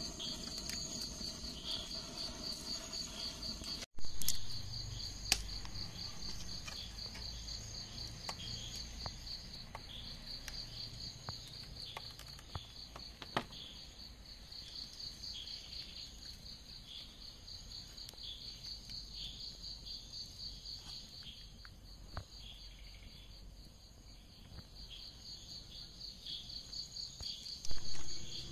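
Crickets chirping in a steady, evenly pulsing high trill. Small clicks and taps of hands working on a cutting board sound over it, with a louder thump about four seconds in and another near the end.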